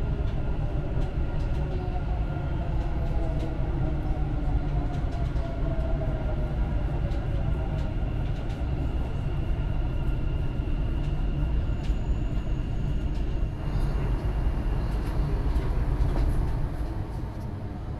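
Dubai Metro electric train heard from inside the carriage while it runs: a steady low rumble with a thin whine, and a tone that drops in pitch over the first few seconds.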